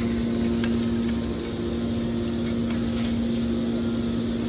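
Steady hum of a hydraulic scrap-metal baling press's power unit, its electric motor and pump running, with a few faint clicks.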